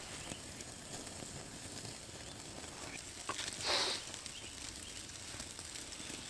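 Faint crackle and hiss of a wood campfire, with one brief louder rustling swish about three and a half seconds in.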